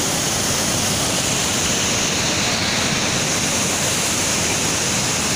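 The Saraswati river rushing and falling through a narrow rock gorge: a steady, even wash of water noise with no breaks.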